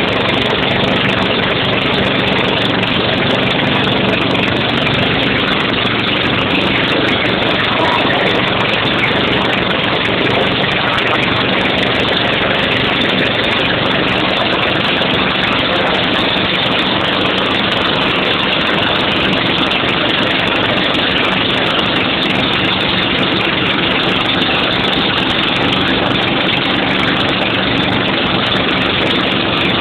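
An engine running steadily under a loud, even rushing noise, unchanging throughout.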